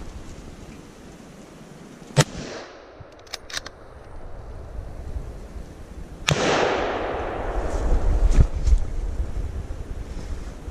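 Hunting-rifle shots echoing through woodland: a sharp crack about two seconds in, a louder shot with a long rolling echo about six seconds in, and another crack a couple of seconds later. Wind rumbles on the microphone between them.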